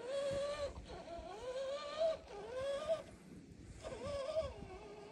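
1/10-scale RC crawler's electric motor whining in repeated throttle bursts as it drives through snow: about four times the pitch rises, holds, then drops away, ending on a lower steady whine.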